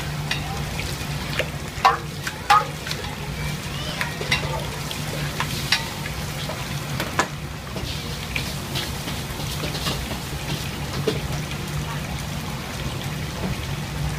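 Water sizzling and spitting in a hot wok over a gas burner, as the wok is rinsed and heated, over a steady low hum. A couple of sharp knocks about two seconds in, with scattered clicks and crackles after.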